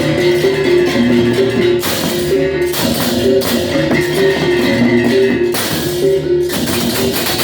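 Balinese baleganjur gamelan playing: repeating, interlocking notes from tuned gong chimes over a dense clash of cymbals. The cymbals break off briefly twice, at about three seconds in and near the end.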